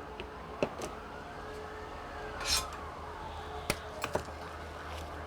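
Dell OptiPlex 7760 all-in-one's power supply fan running with a steady hum, broken by several sharp clicks and knocks from handling the machine. A faint siren wails slowly up and down in the background.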